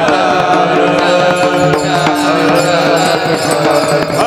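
Devotional kirtan accompaniment: a harmonium holding sustained notes, with a steady percussion beat.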